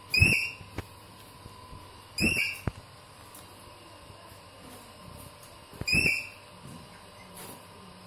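Alexandrine parakeet giving three short, loud, harsh screeches, the second about two seconds after the first and the third nearly four seconds later, with a couple of faint clicks in between.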